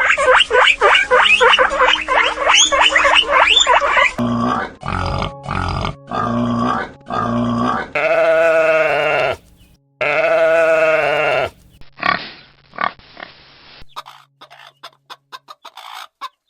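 Pigs grunting and squealing: about four seconds of rapid, overlapping high squeals, then a series of five short grunts, then two long drawn-out squeals, ending in scattered short squeaks and clicks.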